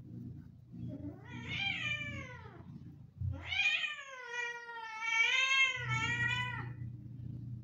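A cat gives two drawn-out, yowling meows while two cats play-fight. The first falls in pitch; the second, longer one wavers up and down. A low steady hum runs beneath.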